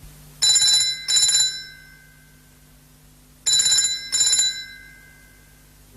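A bell-like ringer sounds twice in a telephone-style double ring: two short rings, then about three seconds later two more, each fading briefly after it stops.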